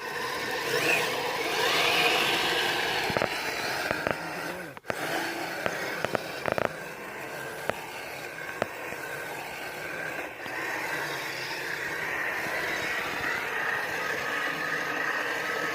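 Kyosho Blizzard radio-controlled snowcat driving, its electric motor and gearbox giving a steady whine over the rushing, scraping noise of its tracks, with a few short clicks along the way.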